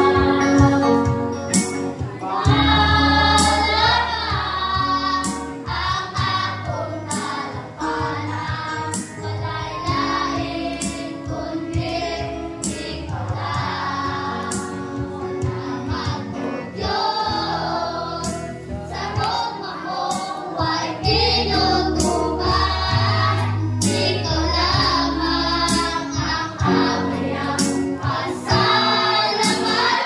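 A mixed group of women, men and children singing a worship song together, over steady low instrumental backing notes.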